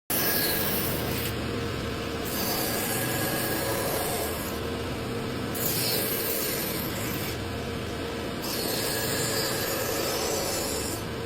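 A hand tool scraping across wood in slow, even back-and-forth strokes, the sound brightening and dulling with each stroke, like rasping or sanding by hand.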